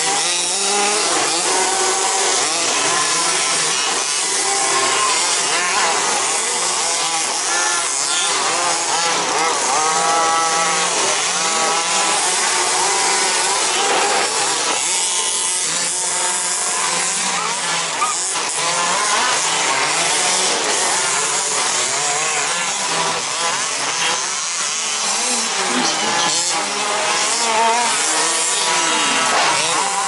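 Several electric 1/10-scale 2WD remote-control buggies racing on a dirt track, their motors whining in overlapping tones that rise and fall with the throttle, over a steady hiss from the track.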